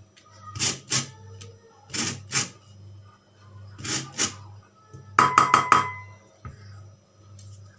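Orange peel being zested on a metal hand grater: short rasping strokes in pairs, about every one and a half to two seconds. About five seconds in comes a quick run of four or five ringing clinks of metal against a dish.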